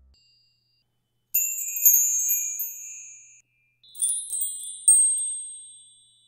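Bright, high chime sound effects that go with the animated like and subscribe buttons. One chime rings out about a second and a half in and fades over two seconds. A second, higher chime comes in near four seconds, is struck again about a second later, and fades out near the end.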